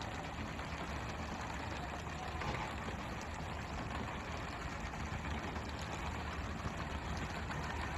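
Fishing boat's engine running steadily, a low hum under a constant hiss of water spray and splashing.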